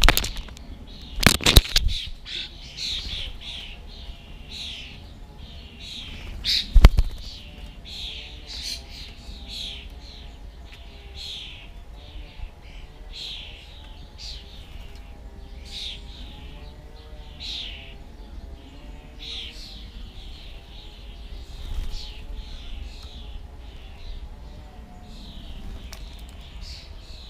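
Small garden birds chirping over and over, short falling chirps about once or twice a second. A few loud sharp knocks at the bird table, the loudest about a second in and again about seven seconds in.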